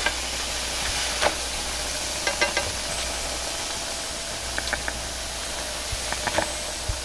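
Steady hiss of a high-heat gas wok burner and food sizzling in the Chinese wok, with a metal ladle clinking and scraping against the wok a handful of times.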